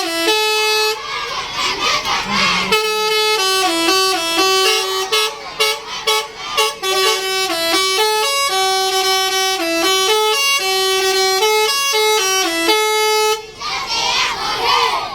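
Bus's basuri 'telolet' horn playing a quick multi-note tune that steps up and down among a few pitches. It breaks off about a second in, starts again about three seconds in and plays for about ten seconds before stopping, with voices shouting in the gap and after it stops.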